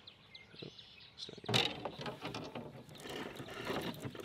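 Bass Pro Shops Pro Qualifier baitcasting reel being cranked by hand, winding new line onto its spool from a line box that keeps the line under tension: a soft, rapid ticking whir that starts about a second and a half in.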